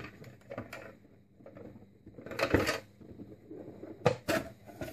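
Hard plastic housing of a hazard warning light being worked apart by hand: a click, a scraping rub of plastic on plastic about two and a half seconds in, then two sharp clicks a little after four seconds.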